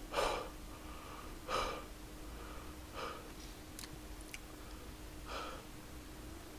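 A man's quiet, heavy breaths, four short breathy puffs a second or more apart, as he pants against the burn of very spicy tteokbokki. Two faint clicks come in the middle.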